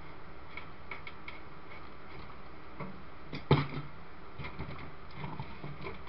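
Small clicks and rustles of hands handling fan wires against an open PC case, with one sharper knock about three and a half seconds in.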